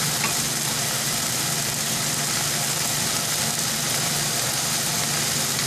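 A steady low hum under an even hiss, with no separate clicks or events.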